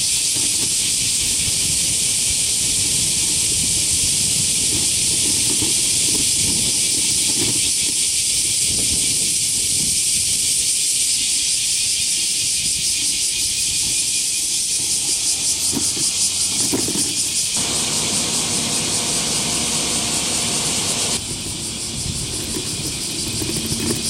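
Dense chorus of cicadas: a loud, high, even hiss that takes on a fast pulsing rhythm in the second half. The level drops abruptly about three-quarters of the way through, and a thinner chorus carries on.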